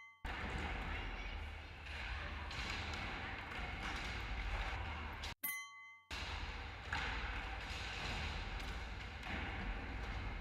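Skateboard rolling, with repeated thuds of the board on landings and background voices. The sound breaks off abruptly about five seconds in, then resumes.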